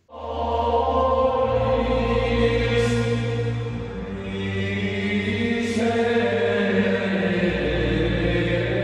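A choir chanting slow, long-held notes in the style of Gregorian chant, over a steady low drone.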